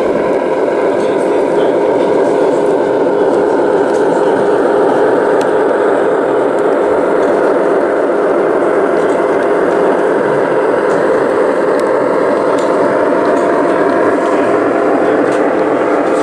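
Steady hubbub of crowd chatter in a busy hall, with a faint whine that slowly falls and then rises in pitch.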